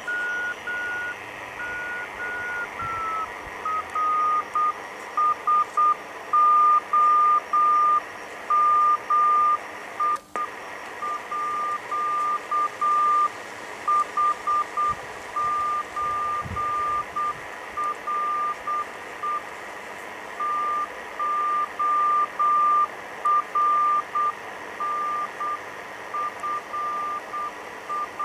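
Morse code (CW) signal received on a WWII German Torn.Fu.b1 transceiver: a single beeping tone keyed on and off in dots and dashes over steady receiver hiss, spelling out a greeting and signal report from the other station. The tone's pitch drops a little about three seconds in, and there is one sharp click about ten seconds in.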